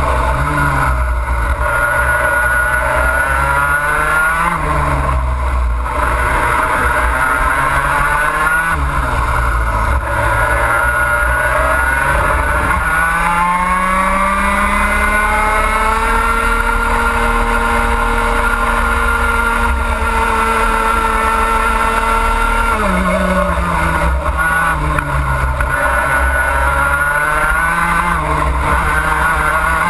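Two-stroke racing kart engine at full racing speed, heard from on board. Its pitch drops sharply into each corner and climbs again on the exits, with one long climb through the middle to a held high pitch on the straight, then a sharp drop about three-quarters through.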